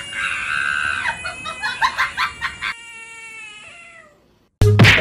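A frog's drawn-out distress scream: a long, held, shrill cry that slowly falls in pitch and fades out about four seconds in. Loud music cuts in just before the end.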